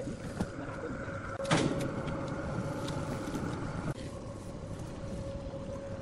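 Sawmill machinery running with a steady hum, while a second machine runs from the start and cuts off suddenly about four seconds in. A single sharp knock sounds about a second and a half in.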